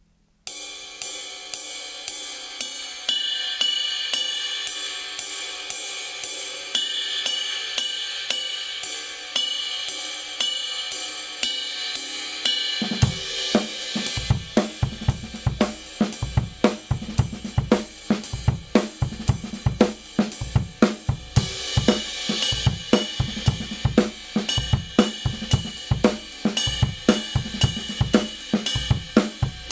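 Kingdo Artist Dark 20-inch ride cymbal played in a steady stick pattern on its own. About halfway through, the kick and snare join in and it becomes a full drum-kit groove riding on the cymbal.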